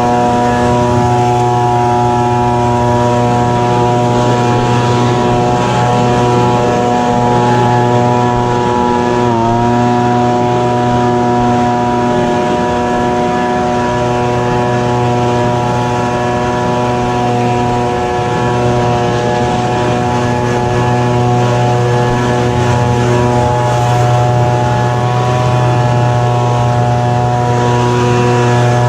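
Echo PB-2520 handheld leaf blower's small two-stroke engine running steadily, with a brief dip in pitch about nine seconds in.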